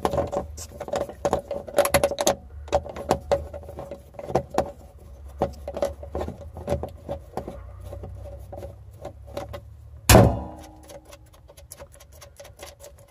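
Screwdriver turning out a screw on a battery cable terminal, with a run of small irregular metal clicks and scrapes over a steady low hum. One louder knock comes about ten seconds in.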